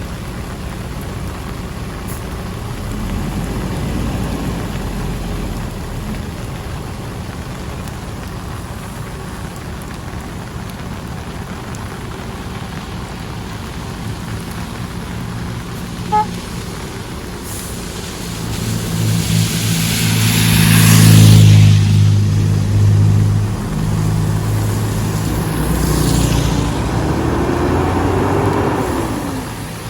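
Heavy rain falling steadily. About two-thirds of the way in, a motor vehicle drives past on the wet road, growing louder to a peak and fading, with a second, fainter vehicle sound near the end.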